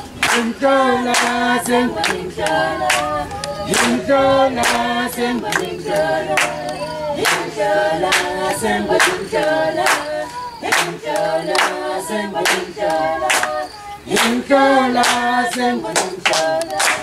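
A junior choir singing, with regular handclaps keeping the beat.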